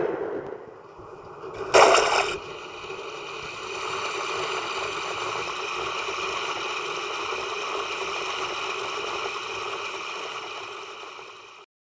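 End-card sound effects: a short sharp burst about two seconds in, then a steady water sound effect that cuts off abruptly just before the end.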